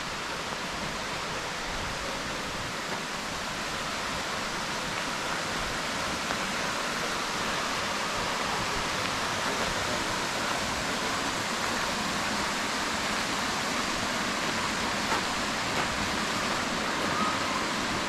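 Hardraw Force waterfall: a steady rush of falling water, growing slightly louder over the span.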